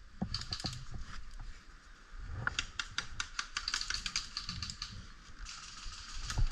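Irregular rapid clicking and rustling, densest in the middle, with a sharper click near the end.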